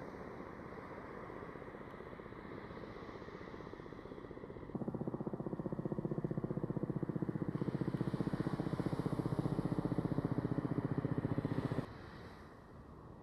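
A motor running with a fast, even pulse, starting abruptly about five seconds in and cutting off suddenly near the end, over a steady rushing noise of wind and surf.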